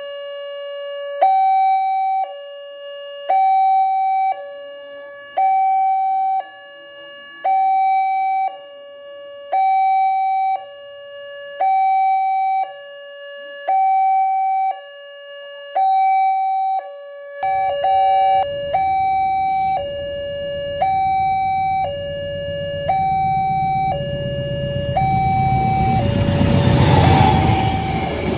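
Railway level-crossing warning alarm sounding its two-tone ding-dong, alternating between a lower and a higher tone about once a second from the moment it switches on. From about two-thirds of the way through, the rumble of an approaching passenger train rises under it and is loudest near the end as the train passes the crossing.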